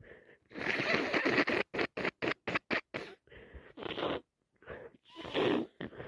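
A person with a heavy head cold blowing and sniffing a congested, snotty nose: one long blow, then a quick run of about six short sniffs, then more blows and sniffs.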